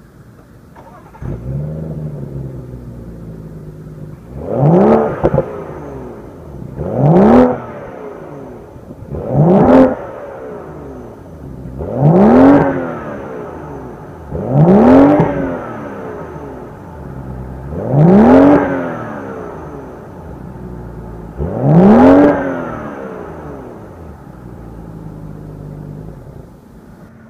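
Exhaust of a BMW 640i's 3.0-litre twin-turbo inline six, idling and blipped by the throttle while parked. After a small blip about a second in come seven revs, each rising and falling in pitch and dropping back to idle. The first three are short and sharp, the last four longer.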